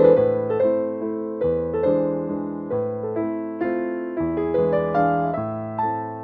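Background piano music, a slow melody of single notes that ring and fade.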